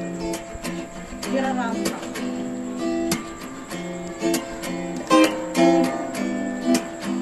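Background music led by acoustic guitar, plucked and strummed notes in a steady flow.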